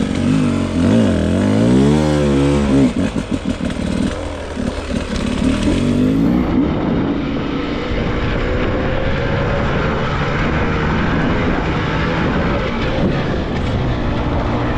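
Beta 300RR two-stroke dirt bike engine revving up and down sharply for the first few seconds, then running steadily as the bike rides on. Its exhaust, holed by a rock, is plugged with a wooden stick.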